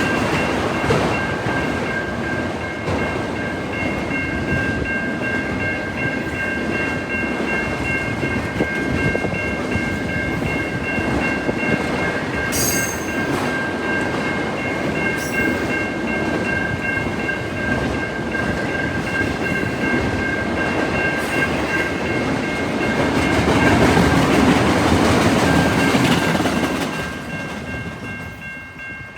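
A train rolling by, a steady rumble of wheels over the rails with some clickety-clack and a steady high ringing tone above it. It swells briefly near the end, then fades off as the train clears.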